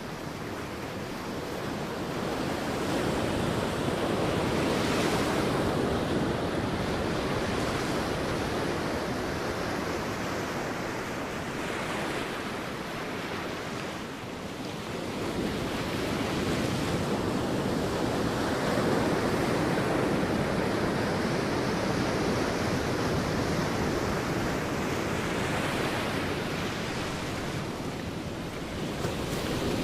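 Sea waves breaking and washing on a beach, a continuous rush that swells and ebbs every several seconds, with some wind.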